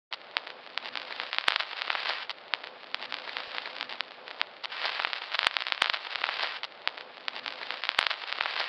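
Vintage film-soundtrack crackle: a steady hiss with scattered clicks and pops and a faint steady hum, as heard under an old film countdown leader. It starts abruptly.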